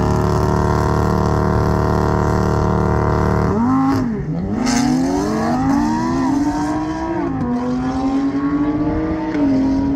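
A Lamborghini Huracán Performante and a tuned BMW G80 M3 drag racing. The engines are held at high, steady revs on the start line. About three and a half seconds in they launch, and the engine note drops, then climbs again through the gears with a short dip at each upshift.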